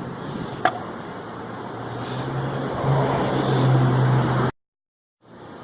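A motor vehicle running nearby, a steady low hum that grows louder over a couple of seconds, then cuts off abruptly. A single sharp click comes about two-thirds of a second in.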